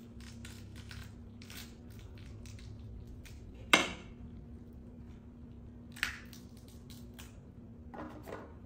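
A pomegranate being torn open by hand: the rind crackles as it is pulled apart, with a sharp crack about four seconds in as the fruit splits and a smaller one a couple of seconds later.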